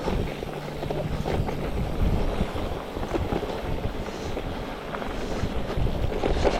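Wind buffeting the microphone and an electric mountain bike rattling and knocking as it rolls over a rough dirt trail.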